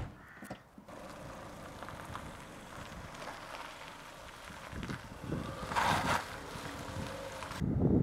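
A car door shuts with a thud at the very start; then a small hatchback pulls away over a wet road, its engine and tyres on the wet surface heard at a distance. Near the end wind starts buffeting the microphone loudly.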